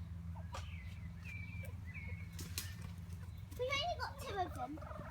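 Hens clucking softly, with a few short high notes early on and a brief cluster of louder, wavering calls about three and a half seconds in, over a steady low rumble.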